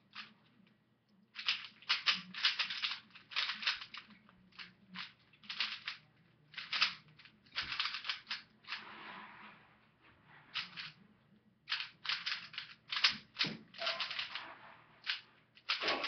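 3x3 Rubik's Cube being turned fast by hand in a speedsolve: quick runs of plastic clicking as the layers turn, broken by short pauses.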